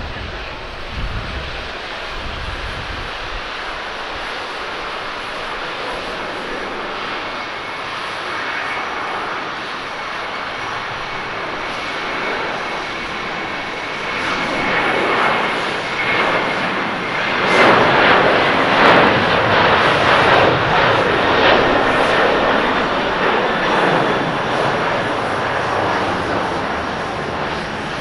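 Twin-engine jet airliners at takeoff thrust: a steady jet roar with a thin high whine held for several seconds mid-way. The roar swells to its loudest as an Airbus A330 rolls past on its takeoff run and lifts off, then eases.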